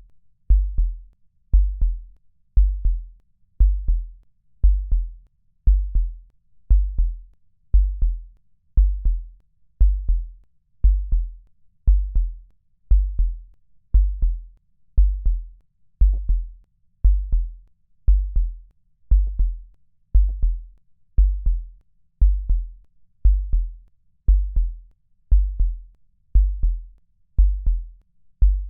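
Low, heartbeat-like electronic double thump repeating steadily about once a second, each beat a quick pair of deep kick-drum hits with a short click on top.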